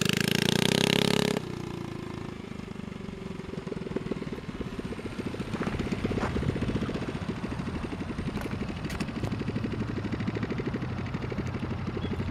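Coleman CT100U mini bike's small single-cylinder engine running hard under throttle, loud and close for about the first second and a half, then dropping suddenly and running on farther off with a rapid, even firing beat.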